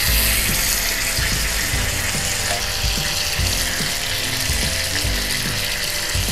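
Background music with a steady beat, over scraping and clinking of a spoon against a bowl as the last of the mushroom sauce is scraped into the pan.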